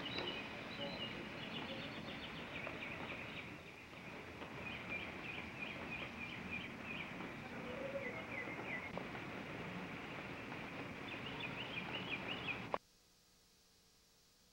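Birds chirping in quick, repeated short calls over a steady background noise, which cuts off suddenly near the end.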